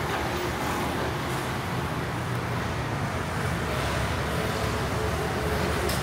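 City road traffic: scooters and cars passing close by, a steady rumble of engines and tyres.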